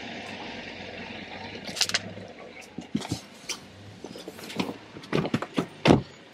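Knocks, rustles and clicks of a person climbing into a car's driver's seat, handling a towel and a plastic water bottle, with a loud thump near the end. A steady hiss underlies the first two seconds.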